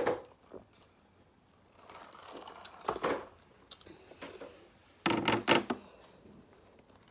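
Drinking from a plastic cup: a click at the lip of the cup, then soft swallowing sounds. About five seconds in comes a short burst of loud rustling and knocks, as a hand handles things right by the microphone.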